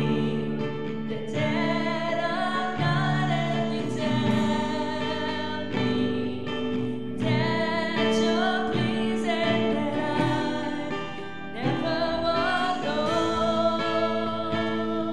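A live church praise band playing a worship song: a woman leads the singing in phrases a second or two long, over guitars and drums.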